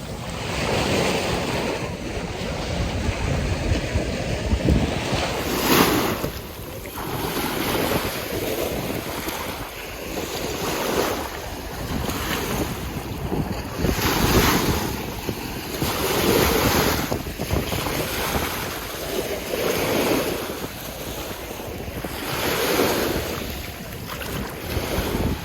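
Lake waves breaking and washing onto the shore, surging every two to three seconds, with wind rumbling on the microphone.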